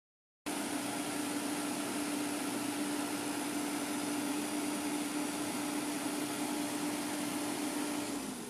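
Heavy diesel engine running steadily, a constant hum over an even hiss, cutting in abruptly after half a second of dead silence and easing off with a slight drop in pitch near the end.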